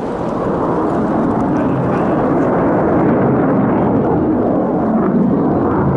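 Jet noise of an F-22 Raptor's two Pratt & Whitney F119 afterburning turbofans as it flies a display pass. It grows louder over the first second or so, then holds as a loud, steady roar.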